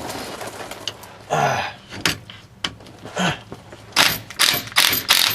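Hand ratchet wrench working the 15 mm nut on a sway bar end link. About four seconds in it starts a run of quick, evenly spaced clicking strokes, two to three a second. The nut comes off soon after.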